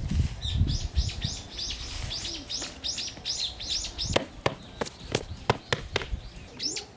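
Small birds chirping: a quick run of short, high chirps, about three a second. In the second half a run of sharp clicks sounds over them.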